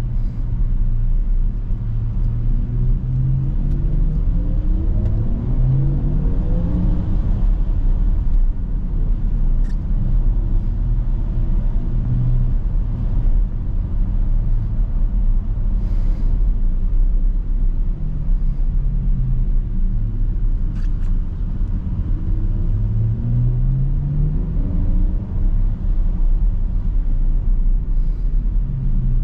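Porsche Macan 4 Electric driving, with steady low road and tyre rumble. Twice, about three seconds in and again past twenty seconds in, a rising drive tone climbs in pitch as the car accelerates.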